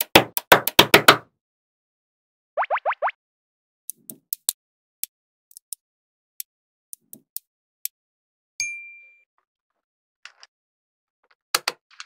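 Magnet balls clicking as they snap into place: a rapid burst of sharp clicks at the start as a strip of balls is laid down, then scattered single clicks. About two and a half seconds in there is a quick run of four rising chirps, and past the middle a short ringing ding.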